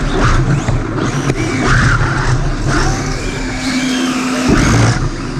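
Electric OpenRC F1 car driving on a concrete floor, heard from on board: a whine that rises and falls in pitch over a rough, rattling rumble from the drive and wheels, with a steady hum for about a second past the middle.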